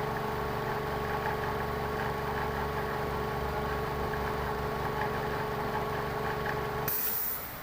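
Lexus car engine idling steadily. Near the end the idle cuts off abruptly and a short hiss is heard.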